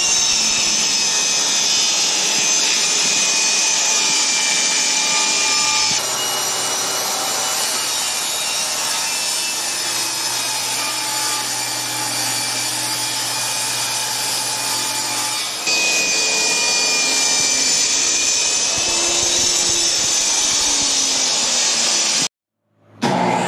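Power saw cutting plywood sheet, a loud, steady noisy whine. Near the end it cuts out briefly, then starts again with a rising whine as the motor spins up.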